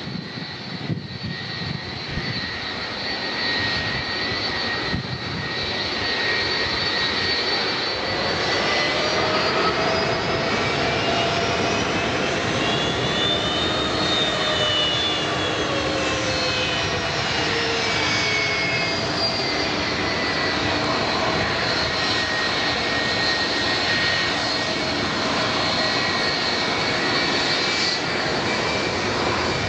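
Korean Air Boeing 777's twin turbofan jet engines running at low taxi power, a steady rush with a high whine. The whine rises and then falls in pitch as the airliner passes about halfway through.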